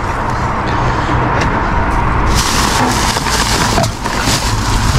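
Clear plastic rubbish bags rustling and crackling as they are shifted about inside a large wheelie bin, with the rustling getting louder and sharper about two seconds in. A steady low rumble runs underneath.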